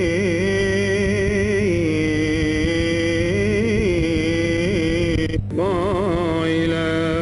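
A man's solo voice chanting an Arabic Gospel reading in liturgical cantillation. He holds long ornamented notes with a wavering pitch, breaks off for a moment about five seconds in, then carries the melody on.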